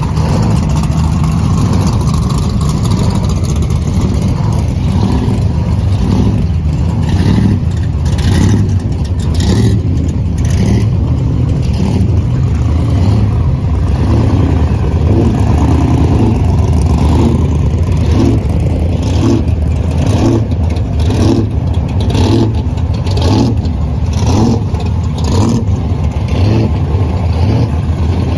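Loud, rumbling engines of pro street muscle cars rolling slowly past one after another, with repeated short throttle revs through the middle and later part.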